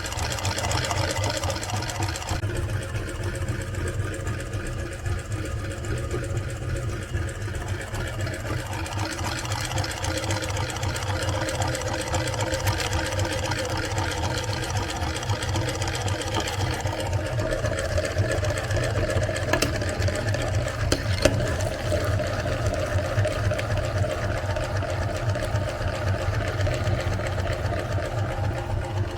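Electric meat grinder motor running steadily with a low hum and a fast rattle, and two sharp clicks about two-thirds of the way through.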